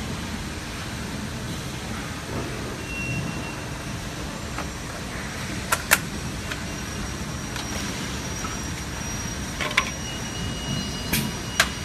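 Steady running noise of automated assembly-line machinery for car rearview mirrors, with a brief high beep about three seconds in and a few sharp clicks of plastic parts and fixtures: two close together around the middle, then more near the end.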